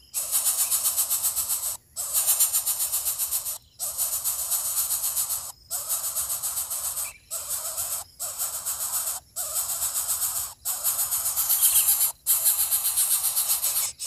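Background music of a rhythmic shaker-like rattle, fast pulses in phrases of one to two seconds broken by brief silences.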